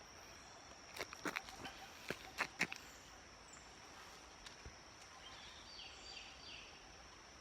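Faint rural ambience: a steady high-pitched insect buzz, a few light clicks or footsteps in the first three seconds, and a short run of bird chirps about six seconds in.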